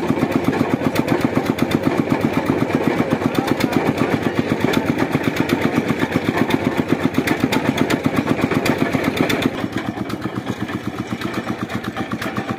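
Engine of a water boring rig running steadily with an even, rapid chugging beat of about five pulses a second. About nine and a half seconds in it becomes quieter, with a steady hum under the beat.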